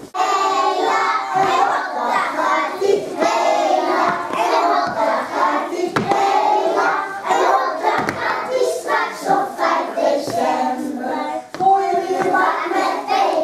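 A group of young children singing a song together, with hand-clapping along to it.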